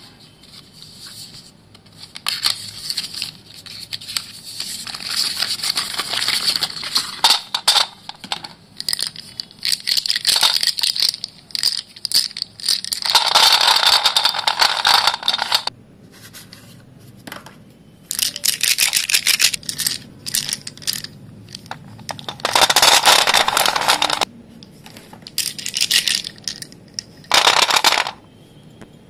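White dustless school chalk being crushed and crumbled, a dry crunching and crackling that runs almost without pause for the first half, then comes in short bursts of a second or two with brief pauses between.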